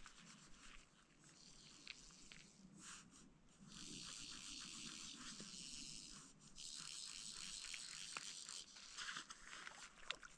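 Faint buzzing of a fly reel's click-pawl as fly line is stripped off it in long pulls: two buzzes of about two seconds each, starting about four seconds in, then another starting near the end.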